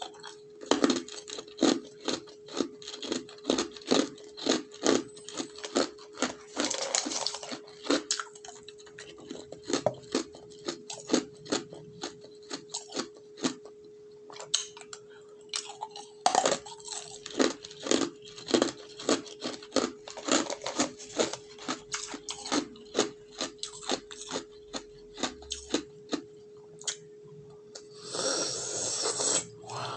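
Ice cubes being bitten and chewed close to the microphone, a steady run of sharp crunches about two or three a second with short pauses. There is a longer scraping burst about seven seconds in and again near the end, over a steady faint hum.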